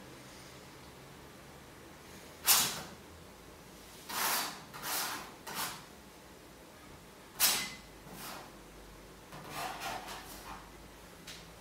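Short scraping, brushing strokes of a painting tool working paint across the painting surface: about seven brief swishes at uneven intervals, the sharpest about two and a half and seven and a half seconds in.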